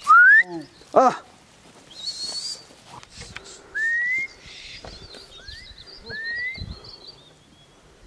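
Herders' whistles driving a flock of sheep: about five short whistles, each gliding upward in pitch, spaced a second or two apart, with a short pitched call about a second in.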